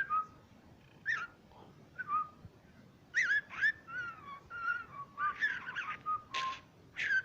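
Pet bird whistling a string of short chirps and warbled whistles, many sliding down in pitch, with two short raspy bursts near the end.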